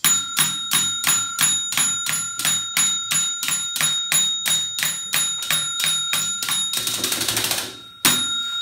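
Desk call bell struck over and over in a fast, even run, about three or four dings a second, each one ringing on. Near the end the dinging gives way to about a second of rattling, then one last ding.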